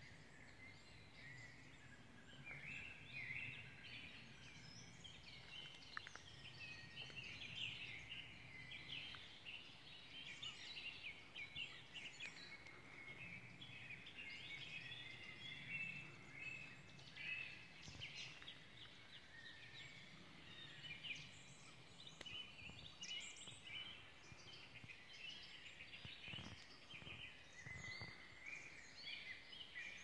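Faint chorus of many songbirds singing at once, with dense overlapping chirps and trills throughout, over a low background rumble.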